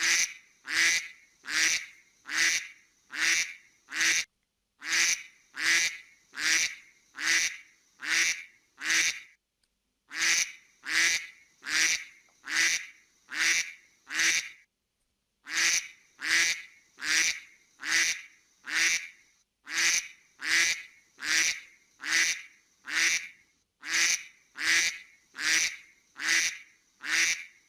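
A duck quacking over and over, about three quacks every two seconds, in runs of seven or eight quacks broken by pauses of about a second.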